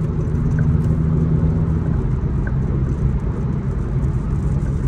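Steady engine and road rumble heard inside a car's cabin while driving at highway speed.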